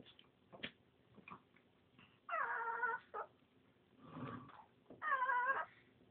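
Cat yowling twice, about three seconds apart, each a drawn-out wavering call of about half a second, with a rougher, lower noise between the two.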